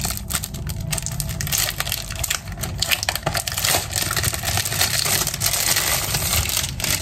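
Clear plastic bag crinkling and rustling as a cardboard sticker box is unwrapped from it, a dense stream of small crackles.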